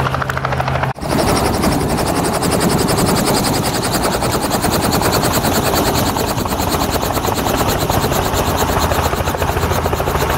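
Small red Robinson helicopter running on the pad close by, rotor turning, with a steady rapid blade chop over engine noise. About a second in the sound dips briefly and comes back closer and fuller.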